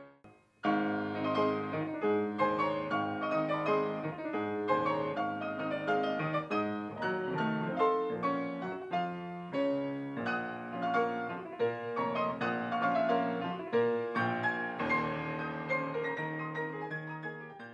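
Solo classical piece played at speed on a Yamaha art-case grand piano: quick runs of notes that start about a second in after a short break, then die away near the end.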